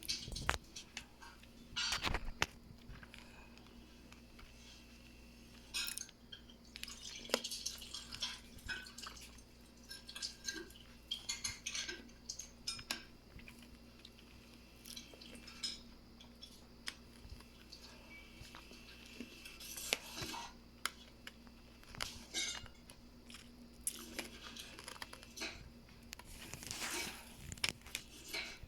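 Scattered light clinks, knocks and rustles of small household things being handled, irregular throughout, over a faint steady hum.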